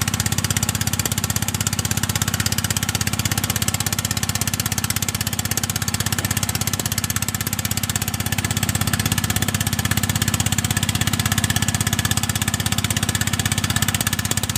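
Diesel engine running steadily at a low idle-like speed, a deep drone with a fast, even pulse.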